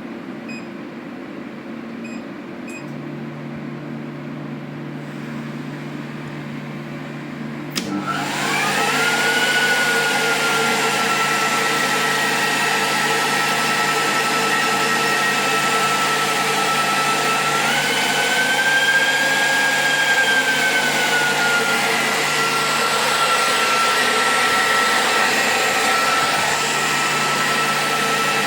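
Electric motor of a repaired Siemens Micro unit on test, with a low steady hum at first. About eight seconds in it switches on with a sudden rush and a whine that climbs quickly, then runs steadily. Its pitch rises a little for a few seconds and settles back.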